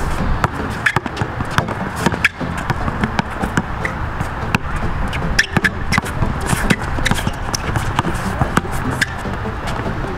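Basketball bouncing on an outdoor hard court as a player dribbles and drives, with irregular sharp bounces and shoe scuffs over a steady rushing background noise.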